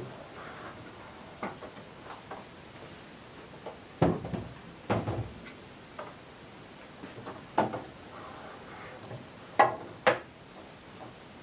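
Wooden leg vise, fitted with an X-Link scissors mechanism and a handwheel screw, being opened and closed: scattered light clicks and wooden knocks as the chop moves and clamps a board. The loudest knocks come in pairs about four and five seconds in and again near the end.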